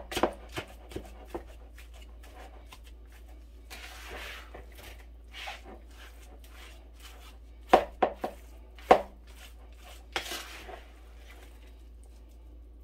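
Wooden spoon working a raw ground-beef meatloaf mixture in a bowl: irregular knocks and scrapes of the spoon against the bowl, with soft squishing of the meat. The loudest knocks come in a cluster around eight to nine seconds in.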